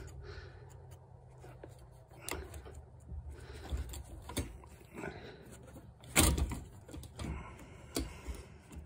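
Flathead screwdriver prying at a stuck plastic quick-connect fuel line fitting on a fuel pump module: scattered clicks and knocks of tool on plastic, the loudest about six seconds in.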